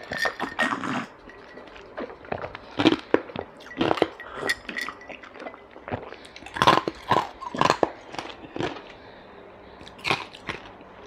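Close-miked drinking of water from a glass mug: gulps and swallows in the first second, then scattered small mouth sounds and light clicks and clinks.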